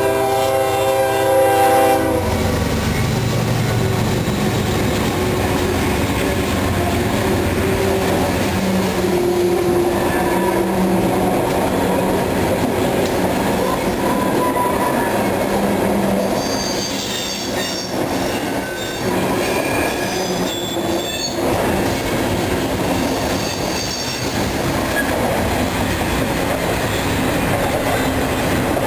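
Diesel locomotive horn of a CSX freight train sounding and cutting off about two seconds in. Then the locomotives and a long string of intermodal cars roll by close, with a steady rumble and clatter of wheels on rail, and a high-pitched wheel squeal that comes and goes from about the middle.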